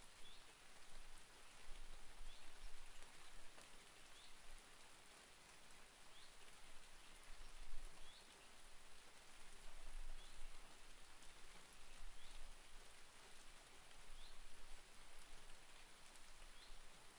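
Steady rain falling, with a bird repeating a short rising chirp about once a second, and intermittent bursts of low rumble.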